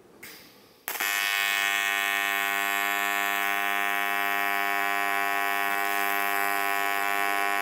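AC TIG welding arc on aluminum. After a faint hiss, the arc strikes about a second in and then buzzes steadily and harshly during a continuous weld run, with filler rod dabbed into the puddle.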